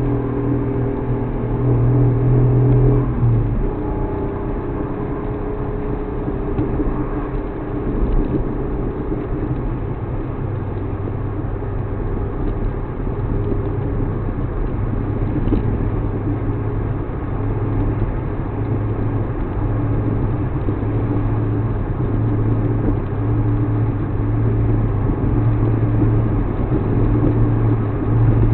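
Suzuki Alto Works HA36S, its 660 cc turbocharged three-cylinder engine running with steady road noise as the car is driven and checked for a knocking from the left front. The engine note changes about three seconds in, then holds steady.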